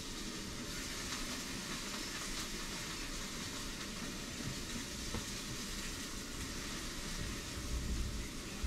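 Steady hiss of background noise, with a few low rumbling bumps near the end.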